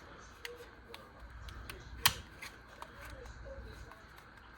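Utility knife cutting into cardboard product packaging: scattered small clicks and scraping, with one sharp snap about two seconds in.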